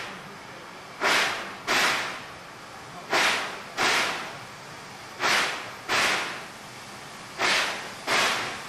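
Steam locomotive exhaust beats, slow and uneven: sharp chuffs come in pairs about half a second apart, with about two seconds between pairs, over a steady hiss.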